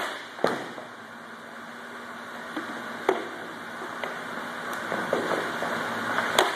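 A few sharp cracks of hockey pucks and sticks striking goalie pads and the floor during shooting drills, spaced seconds apart: one at the start, one half a second in, one about three seconds in and one near the end. A steady hum runs underneath.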